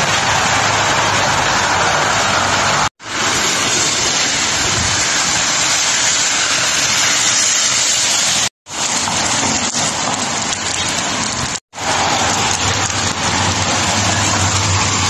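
Steady heavy rain pouring down, a dense hiss that cuts out abruptly three times.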